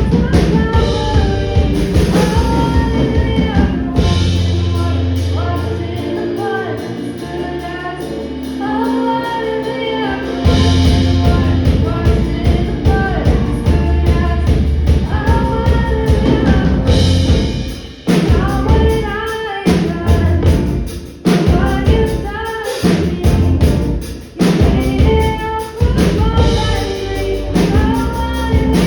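A band playing a song with a lead singer over a drum kit and bass; in the second half the band cuts out briefly a few times, sharp stops between phrases.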